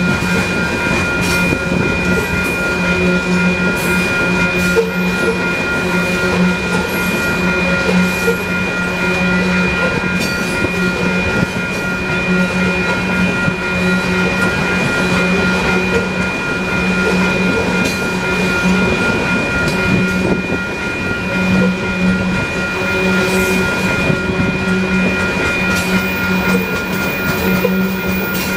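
Loaded coal train's freight cars rolling steadily past on the rails, with steady high-pitched tones held above the rolling noise.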